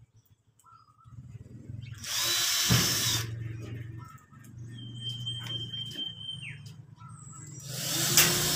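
Corded electric drill driving screws up into ceiling board. The motor runs throughout, with two loud spells of screw-driving a few seconds apart: the first about two seconds in, the second near the end.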